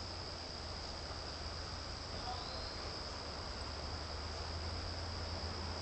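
Steady background ambience: an unbroken high-pitched whine over a low hum and a faint hiss.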